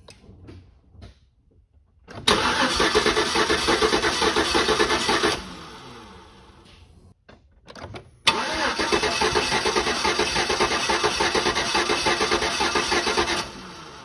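GMC Envoy Denali's 5.3-litre V8 cranked over on its starter twice, a burst of about three seconds and then one of about five, each with an even pulsing beat. The second burst begins with a sharp click.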